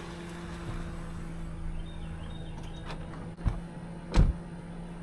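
Two knocks from a car door being opened, the second about four seconds in and louder, over a steady low hum.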